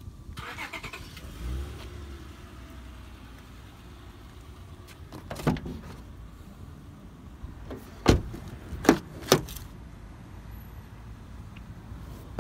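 Doors of a 2003 Toyota 4Runner being handled: sharp clicks and knocks of the door latch and handle, one about five seconds in, then three in quick succession, over a low steady rumble.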